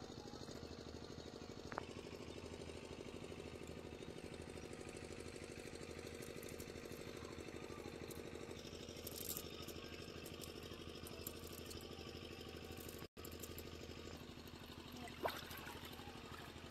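A faint engine running steadily with a fast, even low chug.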